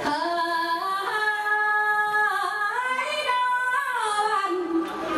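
A woman singing into a handheld microphone, amplified, holding long notes that slide from one pitch to the next.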